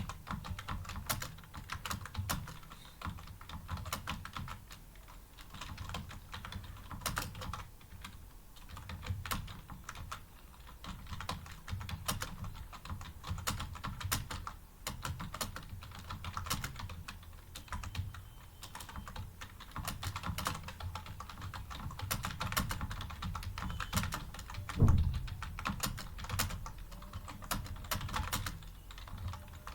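Continuous fast typing on a computer keyboard, with many irregular key clicks. One heavier thump comes about five seconds before the end.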